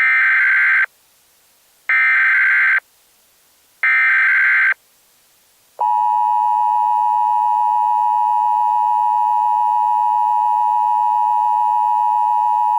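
Emergency Alert System tones: three short, harsh bursts of the digital SAME header data, each under a second and about two seconds apart, then the steady two-tone EAS attention signal starting about six seconds in.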